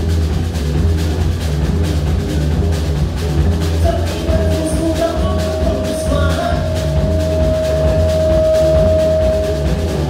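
Live rock band playing: drum kit, bass guitar and electric guitar. One long high note is held from about four seconds in almost to the end.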